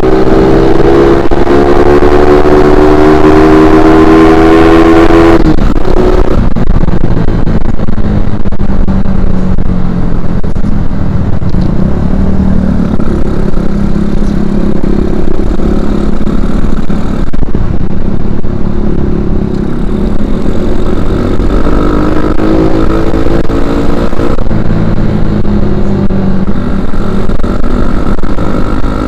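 Suzuki Shogun Axelo R 125 cc single-cylinder four-stroke engine, breathing through a stock Suzuki Satria FU 150 silencer, revving up on the move. Its pitch rises for about five seconds, falls suddenly as the throttle shuts, and the engine runs lower for a while. Later it climbs again, drops once more, and rises toward the end.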